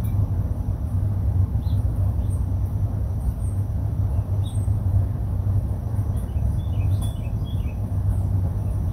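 A steady low rumble, with faint bird chirps over it: a couple singly, then a small cluster about six to seven seconds in.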